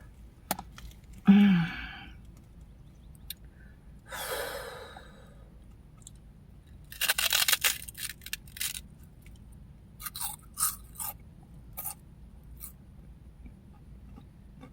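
Crunching and chewing of crispy puffed snack rings: a dense run of crunches a little past halfway, then a few scattered single crunches. Before that come a short vocal sound about a second in and a loud breath about four seconds in.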